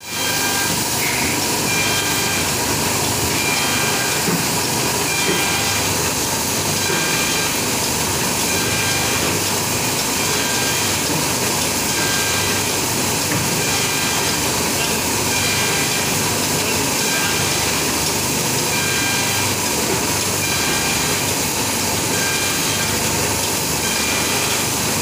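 Polygraph hook-thread (Smyth-type) book sewing machine running steadily while sewing folded book signatures: a continuous mechanical clatter with a faint high tone recurring at an even rhythm through each sewing cycle.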